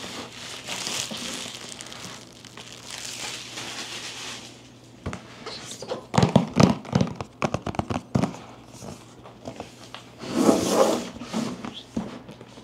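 Packaging being handled during an unboxing: rustling and crinkling over the first few seconds, then a run of sharp clicks and knocks from about five seconds in, and another short rustle near the end.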